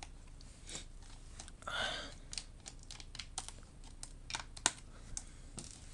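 Scattered small clicks and taps of screws and a screwdriver being handled on a laptop's plastic case, with a brief scrape about two seconds in and one sharper click near the end.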